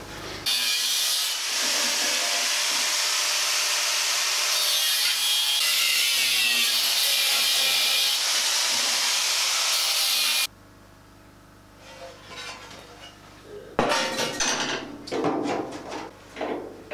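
Angle grinder grinding steel: a loud, steady grind for about ten seconds that stops abruptly. After it, a few clanks and knocks of steel brackets being handled.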